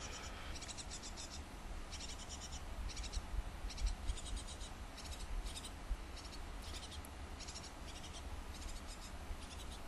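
Tit nestlings begging inside a nest box: short bursts of rapid, high-pitched cheeping, repeated every second or so, over a low steady hum.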